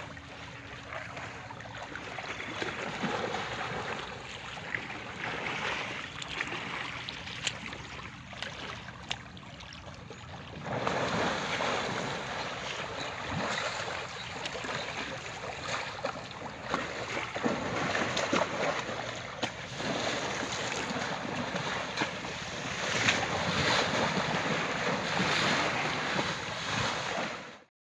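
Floodwater splashing and sloshing around a wading Asian elephant, with wind on the microphone. The splashing grows louder about eleven seconds in, and the sound cuts off suddenly near the end.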